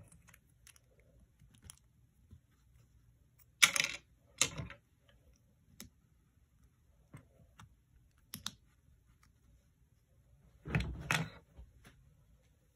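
Plastic LEGO pieces clicking and clacking as they are handled and pressed together, with two sharp clacks about four seconds in, a few lighter clicks, and a louder cluster of clacks near the end as the assembled piece is set down on a wooden table.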